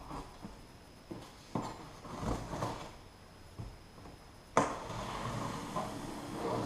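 A cardboard shipping box being handled and opened, with scattered knocks and scrapes. About four and a half seconds in there is a sharp snap, followed by about two seconds of steady rasping noise.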